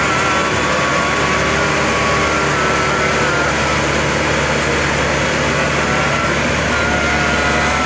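Maxxi Bimo 102 combine harvester's diesel engine running loud and steady under load as the machine climbs ramps onto a truck bed, with a faint wavering whine over the engine noise.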